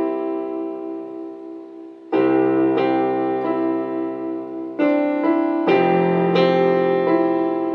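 Digital keyboard played with a piano sound: slow, held chords that ring and fade, with a new chord struck about two seconds in and a few more in quicker succession near the end.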